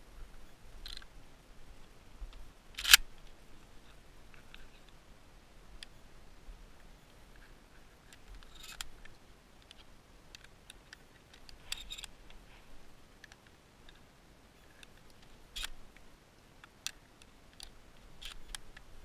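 Scattered sharp clicks and snaps from handling a Harrington & Richardson Pardner 12-gauge single-shot break-action shotgun, with one much louder crack about three seconds in.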